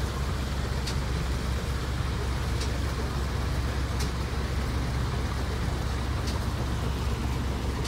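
A motorboat's engine running steadily as the boat cruises by, a low rumble under a wash of noise, with a few faint sharp ticks every second or two.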